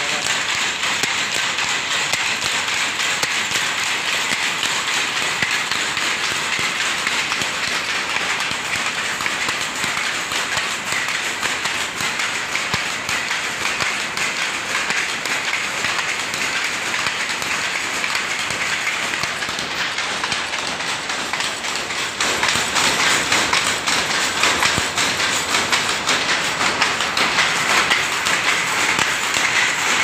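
Shuttle power looms running, a continuous fast rhythmic clatter of the shuttle being picked and the reed beating up the weft. The clatter grows louder about three-quarters of the way through.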